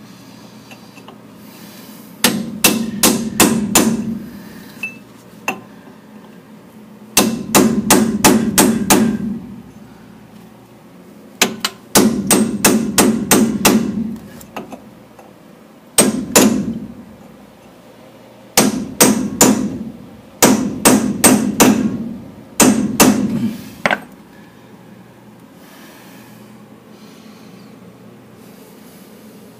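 Hammer blows ringing on the steel of a 1985 Dodge W150's Dana 44 front axle, struck to drive the stub axle loose. The blows come in about eight quick bursts of three to six strikes, with short pauses between.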